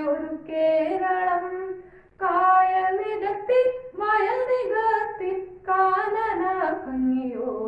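A boy singing a Malayalam poem alone and unaccompanied, in a chant-like melody of held notes. He sings in phrases of a second or two, with short breaks for breath between them.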